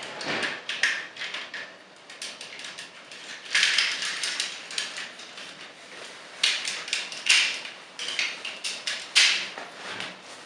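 Hard plastic parts of a transforming robot toy being handled and clicked into place: a run of small clicks and scrapes, with louder snaps about three and a half seconds in and several more in the second half.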